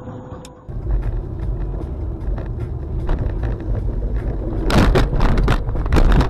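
Car rumble heard from inside a moving car, picked up by a dashcam. It starts suddenly about a second in and stays steady. A run of loud, sharp knocks comes about five seconds in.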